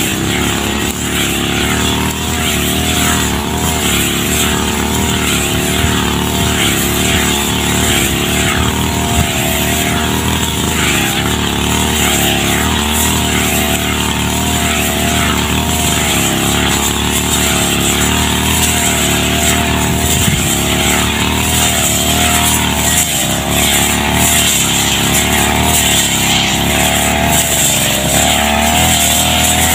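Brush cutter's small engine running steadily while mowing tall grass, its pitch wavering slightly up and down as the blade swings through the grass; it grows a little louder near the end.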